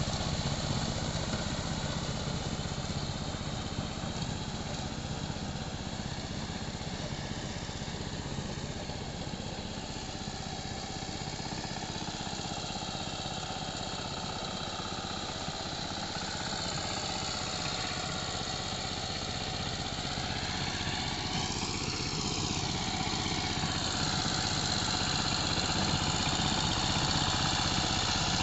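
Dongfeng power tiller's 12 HP Changchai single-cylinder diesel engine running steadily under load while tilling flooded paddy mud. It grows fainter through the middle as the machine moves off across the field, then louder again near the end as it comes back.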